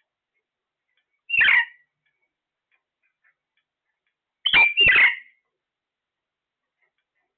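A parrot giving short, loud calls: one about a second and a half in, then two in quick succession about halfway through.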